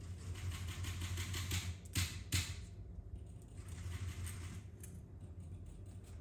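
Small metal Zippo lighters being handled: light rattling and rustling, with two sharp clicks about two seconds in.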